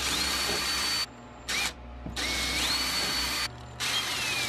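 Ridgid cordless drill driving screws into a concealed cabinet hinge, in three short trigger pulls and one brief blip. At the start of each pull the motor whine rises in pitch, then holds steady until the trigger is released.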